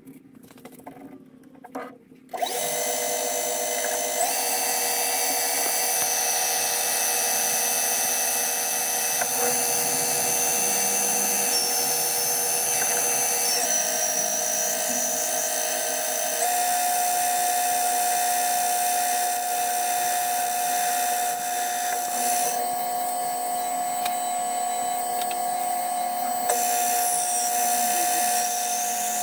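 Myford Super 7 metal lathe starting up about two seconds in after a few light clicks, then running steadily with a high whine while a twist drill held on the carriage bores into a spinning brass rod. The whine shifts in pitch a few times as the cut goes on.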